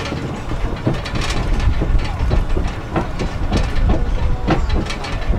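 Riding aboard a DOTTO road train: a steady low running rumble with irregular rattles and knocks from the carriages as it rolls along.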